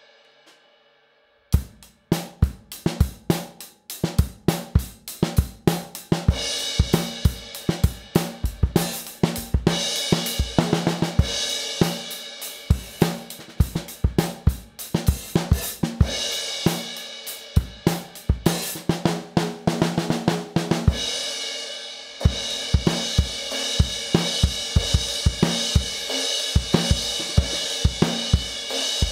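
Drum beat on a Yamaha Beech Custom kit, with bass drum, snare and hi-hat, and a Zildjian 18-inch K Custom Fast Crash cymbal washing over it in stretches. It starts about a second and a half in, after the last of a cymbal's ring fades out.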